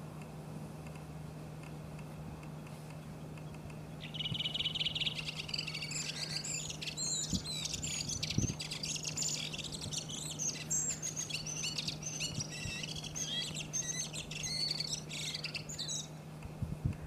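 Redwing singing: about four seconds in it starts a quick run of even high notes, then goes into a long, varied twittering warble that stops about four seconds later than twelve seconds in, at around sixteen seconds. A low steady hum sits underneath throughout.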